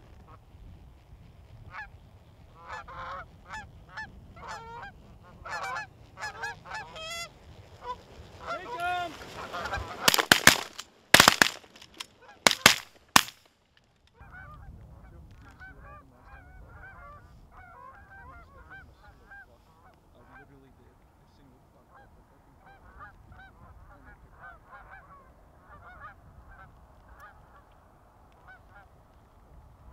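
Goose honking builds over the first several seconds, then a rapid volley of shotgun blasts, about six shots, goes off between ten and thirteen seconds in. Fainter honking from the flock continues after the shooting.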